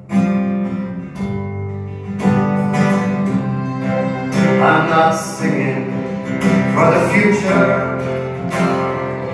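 Live acoustic band music: an acoustic guitar strummed, coming in suddenly at the start, over sustained low bass notes, with a wavering melody line rising above it a few times.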